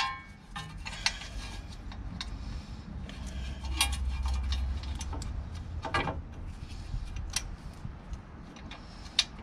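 Sharp metallic clicks and clinks, spaced irregularly a second or two apart, as the steel hold-down pins and springs of a Peugeot Boxer's rear drum-brake shoes are worked into place through the backing plate. A low rumble runs under them for a second or so in the middle.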